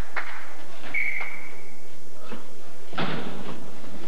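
Volleyball being struck during a rally in a gym hall: a few sharp thuds that echo off the walls, the loudest about three seconds in. About a second in, a steady high tone sounds for just under a second.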